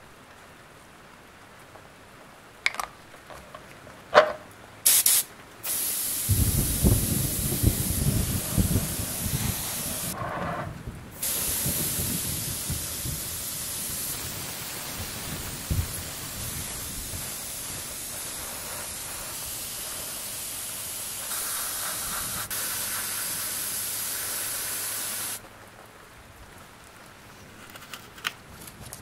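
Airbrush spraying paint with a steady hiss, breaking off briefly about ten seconds in and stopping a few seconds before the end, with a lower rumble under the hiss at first. A few sharp clicks come before the spraying starts.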